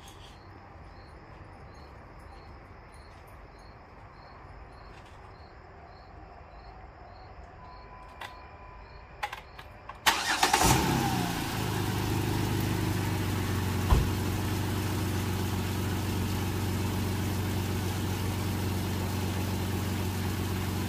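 Jeep Wrangler Unlimited (JK) engine cranked and started about halfway through, catching almost at once and settling into a steady idle, with one sharp knock a few seconds after it starts. Before the start there are a few clicks and a faint high beep that repeats at an even pace.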